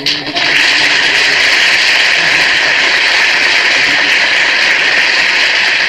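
Studio audience applauding steadily for several seconds, heard on a 1940s radio broadcast recording.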